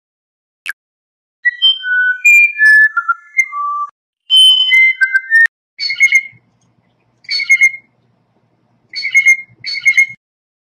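A run of clear whistled bird notes stepping up and down in pitch, then four separate harsh, raspy blue jay calls.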